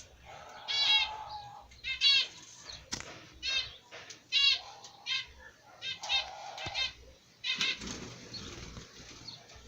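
Caged birds in an aviary calling: short bursts of quick, high chirping notes, a new burst about every second.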